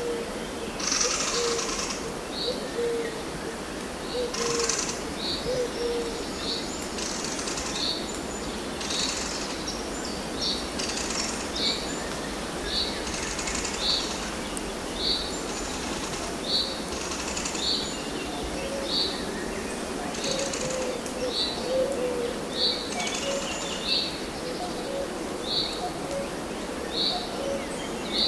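Forest birdsong: one bird repeats a short high note about once a second, over hissy rasping calls every second or two and scattered low notes.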